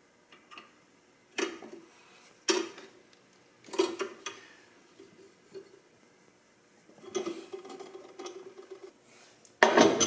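Metal clanks of a steel C-clamp being set and tightened to hold a ball joint against a suspension control arm. Three sharp clanks about a second apart, then a couple of seconds of rattling and scraping, and a louder clatter right at the end.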